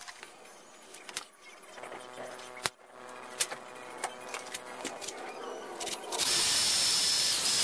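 Clicks and knocks of handling work in a bench vise, then about six seconds in a handheld power drill runs loudly and steadily for about a second and a half with a high whine, drilling a vent/witness hole in a tight-fitting landing-gear tube fitting, and cuts off suddenly.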